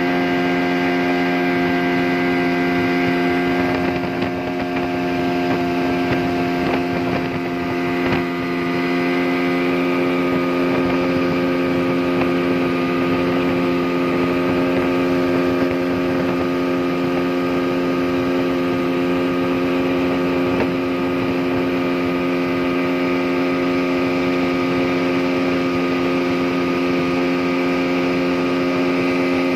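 Yamaha 40 hp outboard motor running at a steady high speed, pushing a fully loaded speedboat, over the rush and spray of water along the hull.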